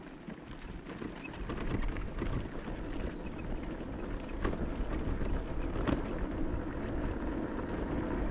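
Bicycle on the move: wind rushing over the microphone and tyre noise from the road, growing louder over the first couple of seconds, with a few faint clicks.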